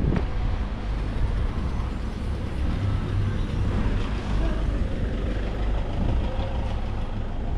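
Engine of a heavy vehicle running close by, with steady low-pitched engine noise that grows a little stronger about three seconds in.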